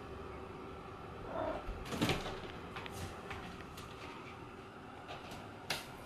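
Wall extractor fan running with a steady hum, broken by a dull thump about two seconds in and a sharp click near the end.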